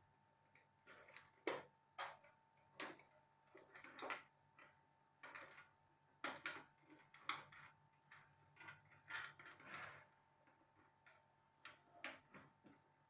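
Faint, irregular metal clicks and light knocks, roughly one a second, from fastening screws into the aluminium frame of a small CNC milling machine during assembly, over a faint steady hum.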